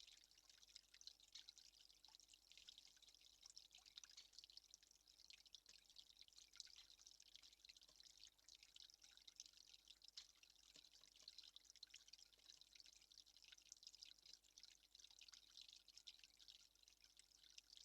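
Faint, steady patter of many small water drops, a dense fine crackle with no pauses.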